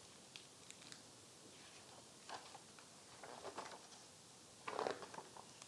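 Faint rustling of a hardcover picture book being opened and its pages handled: a few soft, scattered sounds, with a slightly louder one near the end.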